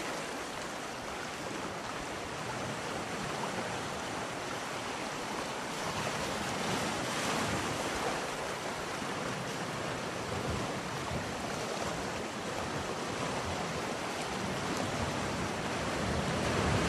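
A steady rushing noise that swells gently in loudness now and then.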